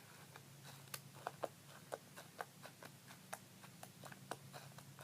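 Soapy, slippery homemade slime being poked and squished by hand, making faint, irregular wet clicks and pops, several a second.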